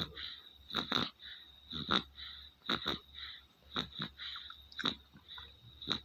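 A sleeping baby snoring, with a noisy breath about once a second; the snoring is put down to a fever.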